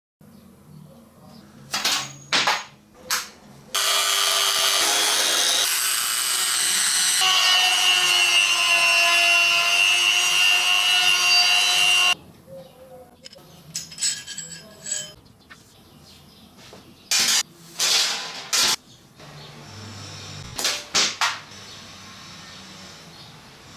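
A power tool runs for about eight seconds with a steady whine whose pitch drops a little partway through, then stops suddenly. Short knocks and clicks of tools or metal being handled come before and after it.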